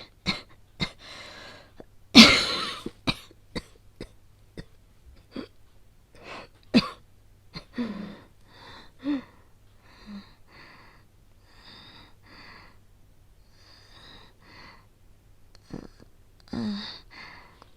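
A young woman coughing in a fit, as an asthmatic with a cold, the loudest cough about two seconds in. Between the coughs come short, laboured, wheezy breaths, and a last cough comes near the end.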